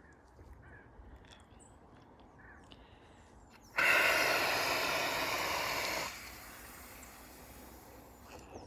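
Pressurised fire extinguisher being vented: about four seconds in, a sudden loud hiss of escaping air lasts a couple of seconds, then drops abruptly to a fainter hiss that tails off as the pressure bleeds away.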